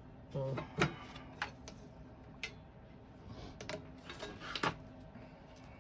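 Scattered light clicks and taps of hands handling an aluminum window frame while a new rubber gasket is fitted, with a brief low murmur near the start.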